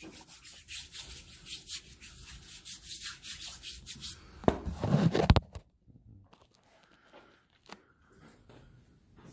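Handling noise: rapid rubbing and scraping against the phone's microphone for about four seconds, then a louder scuff and bump about five seconds in, after which only faint room sound and a few light clicks remain.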